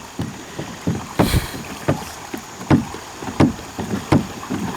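Hobie Mirage Drive pedal fins knocking and scraping on the riverbed as the kayak is pedalled through water too shallow for it, a knock about every two-thirds of a second, one louder than the rest a little past a second in.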